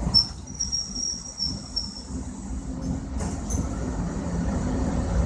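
MEMU electric multiple-unit train passing, its wheels giving a steady low rumble on the rails. For about the first two seconds a thin high-pitched squeal rides over the rumble.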